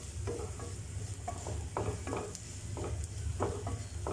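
Wooden spatula stirring and scraping sautéed onion, carrot and spice masala around a nonstick frying pan, a stroke about every half second, with a light sizzle. A steady low hum runs underneath.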